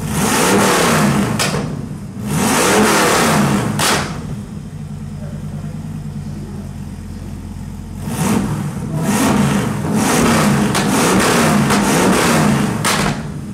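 The Millyard Viper motorcycle's 8.0-litre Dodge Viper V10 engine running and being revved hard. Two big revs come in the first four seconds, then it idles for about four seconds, then a run of revs follows, dropping back to idle just before the end.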